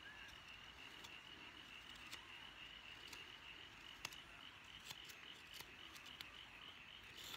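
Near silence, with a faint, steady, high-pitched chirring of an insect such as a cricket and a few faint clicks from the carving work.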